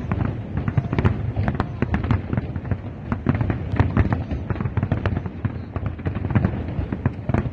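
Fireworks display going off: a rapid, continuous string of bangs and crackles, several a second.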